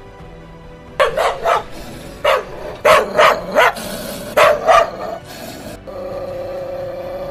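A dog barking: about nine sharp barks in quick bunches, starting about a second in, over background music.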